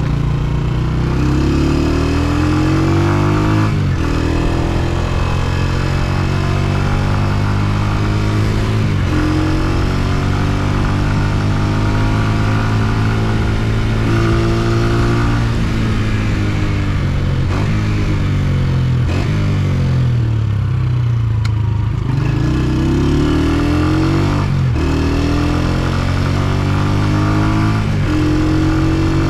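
Honda CG125's single-cylinder four-stroke engine under way, revving up through the gears: its pitch climbs in each gear and drops at each upshift. About twenty seconds in it slows with the revs falling, then pulls up through the gears again.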